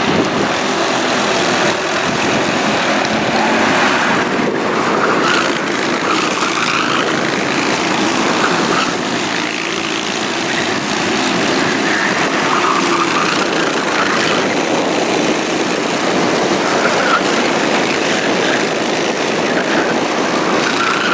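Several racing kart engines running as the karts lap the circuit: a steady drone, with engine notes that come and go and rise and fall.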